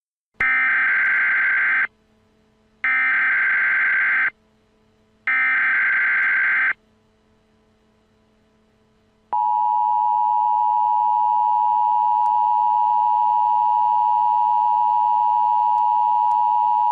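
Emergency Alert System tones: three bursts of SAME header data, a warbling digital screech about a second and a half each with about a second's pause between them, then the steady two-tone EAS attention signal from about nine seconds in.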